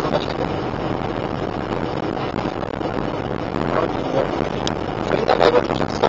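Steady road and engine noise inside a car's cabin while driving along a rough, patched asphalt road.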